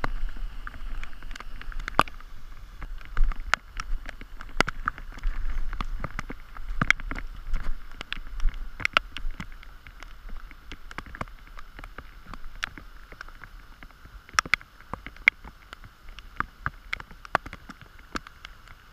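Steady rain hissing on the water, with many irregular sharp taps of drops landing close by.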